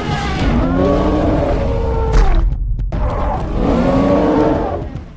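Two long, loud animal roar sound effects, each falling in pitch, over a low rumble.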